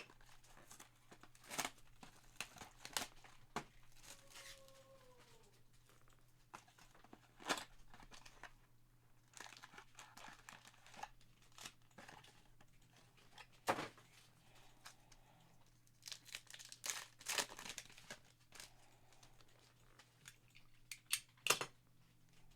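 Trading card pack wrappers being torn open and crinkled, with scattered sharp crackles as wrappers and cards are handled.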